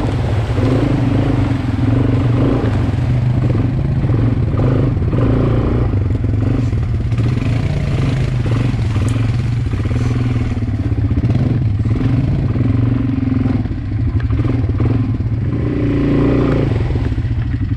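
Quad bike (ATV) engine running at low speed along a rough dirt track, its note swelling and easing with the throttle, with knocks and rattles from the machine over the bumps.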